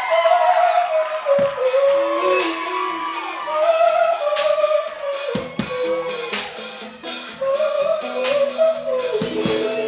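A live band plays with a woman singing a gliding, held melody line over bass and a drum kit. The drums and cymbals come in about a second and a half in.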